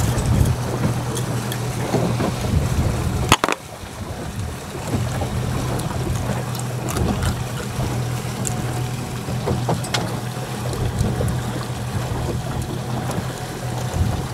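A fishing boat's engine running with a steady low hum under wind and water noise. A single sharp knock comes about three and a half seconds in.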